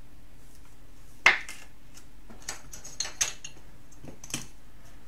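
A rigid clear plastic trading-card holder being handled: a few sharp plastic clicks and taps, the loudest about a second in, with smaller ones later.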